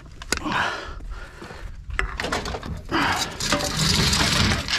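Handling noise: a few clicks and footsteps on gravel, then a long scraping rustle as a ute's tray cover is pulled back over a load of empty drink cans and bottles.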